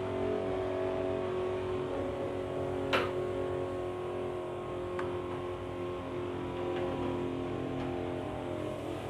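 Steady drone of running machinery with several held pitches, heard while disinfectant is sprayed through a hose-fed wand. A single sharp click about three seconds in.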